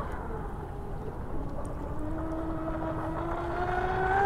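Pro Boat Zelos 48-inch RC catamaran's twin electric motors whining at speed. The pitch dips slightly at first, then rises steadily from about halfway through, and the whine grows louder near the end as the boat comes closer.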